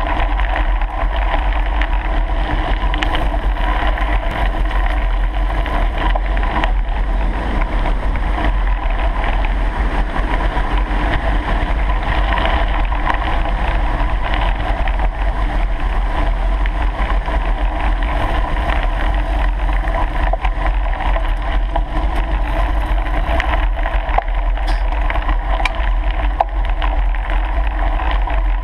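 Steady rumble and hiss of a bicycle rolling fast along a gravel forest track, heard from a camera on the bike: tyre noise on the gravel mixed with wind on the microphone.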